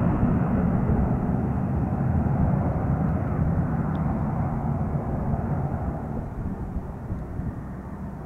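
A business jet's twin rear-mounted turbofan engines rumbling steadily and fading as the jet moves away down the runway.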